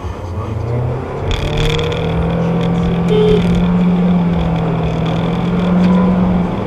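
A car driving: engine and road noise, with a steady engine tone that climbs slowly from about a second in and falls away near the end.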